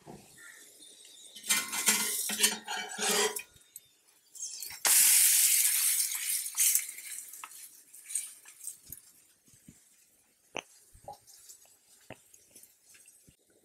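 Spatula and frying pan clattering as a cooked quesadilla is lifted off the hot, buttered pan, with a loud hiss lasting about two seconds around five seconds in, then a few scattered light clicks.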